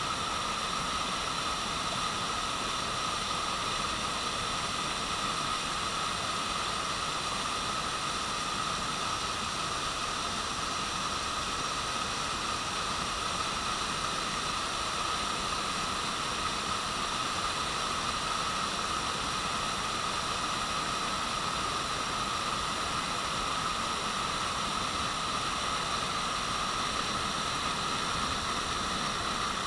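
Rain-swollen muddy stream pouring over a stepped concrete weir: a steady, unbroken rush of water.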